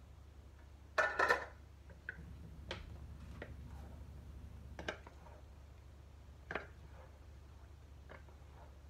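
Kitchen cookware and utensils knocking: a short clatter about a second in, then a handful of scattered light clicks and knocks, over a low steady hum.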